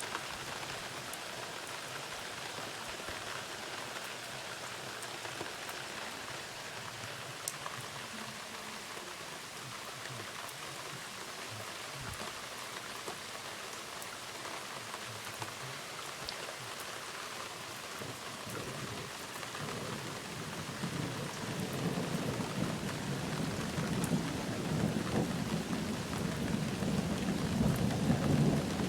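Steady rain falling throughout. About two-thirds of the way in, a low rumble of thunder builds and rolls on, loudest near the end.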